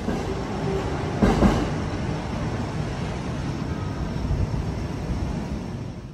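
Train running on the elevated railway tracks overhead: a steady low rumble, louder for a moment about a second and a half in.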